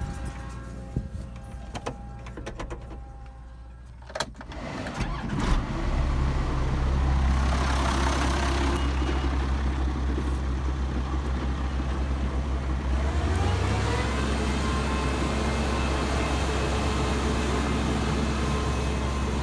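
Farm machine engine: a few clicks and knocks in relative quiet, then the engine comes in about five seconds in and settles into a steady, loud low run. Around thirteen seconds in its note rises as it revs up.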